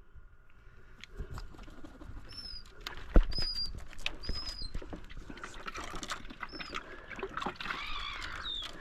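Birds calling in short high whistled chirps, about four notes spread over several seconds, among scattered light clicks and taps, with one sharp knock about three seconds in.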